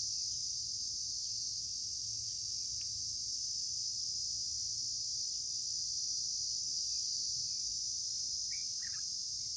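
Steady, high-pitched insect drone, with a couple of short bird chirps near the end.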